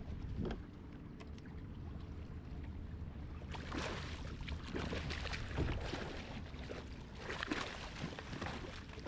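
Water sloshing and splashing around a small boat, in irregular bursts from about a third of the way in, over a low steady rumble.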